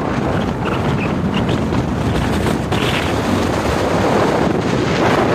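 Wind rushing over the microphone of a car moving at highway speed, mixed with steady road and tyre noise.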